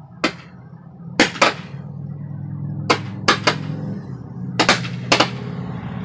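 Consumer fireworks going off close by: about nine sharp bangs, several in quick pairs, as green stars burst just above the ground.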